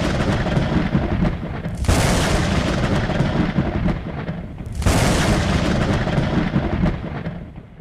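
Three loud, rumbling noise blasts, each starting suddenly and running on for two to three seconds; the last fades out near the end.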